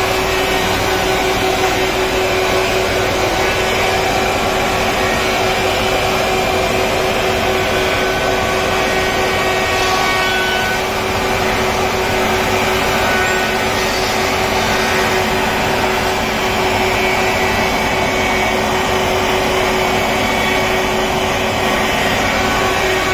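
Industrial four-sided wood planer (moulder) running continuously, a steady, even machine noise with a constant tone through it.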